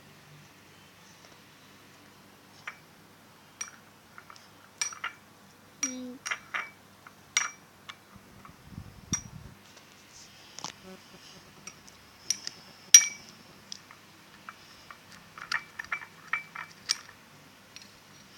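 A stirring stick clinking and tapping against the container while slime is mixed, in irregular sharp taps, the loudest about 13 seconds in.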